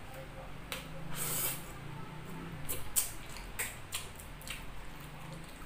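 Bare fingers picking through spicy chicken feet and rice on a plate: an irregular run of wet squishes and sharp clicks, with a longer hiss about a second in.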